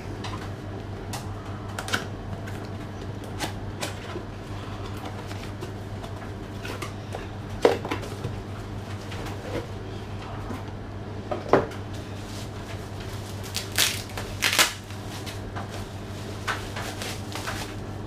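Scattered clicks, knocks and rustles of hands taking out and handling a replacement PC power supply unit and its packaging, with sharper knocks about a third and two-thirds of the way in and two louder rustling noises near the end. A steady low hum runs underneath.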